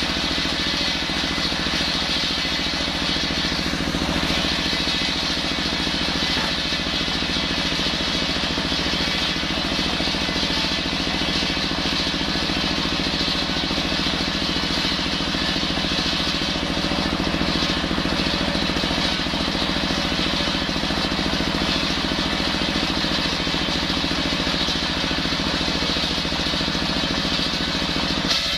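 Single-cylinder horizontal diesel engine running steadily at speed, driving a table circular saw that rips lengthwise through a hard coconut palm log.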